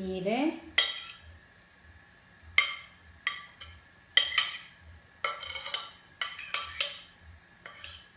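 A metal spoon tapping and scraping against a plate as chopped spinach is pushed off it into a bowl. The result is a run of short ringing clinks, some single and some in quick clusters.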